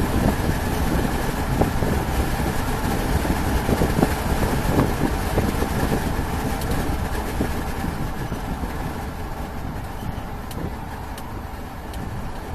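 Car engine and road noise, steady at first and growing quieter from about two-thirds of the way through.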